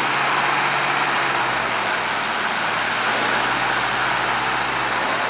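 Engine of a vintage Mercedes-Benz saloon running at low revs as the car creeps forward, a steady low hum, over a steady wash of echoing background noise in a large hall.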